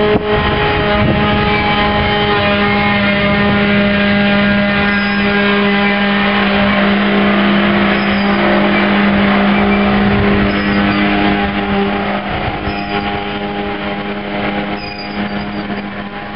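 Covered hopper cars of a freight train rolling past close by, with a steady droning hum, wheel-on-rail rumble and a few brief high-pitched wheel squeals. The sound eases off somewhat near the end.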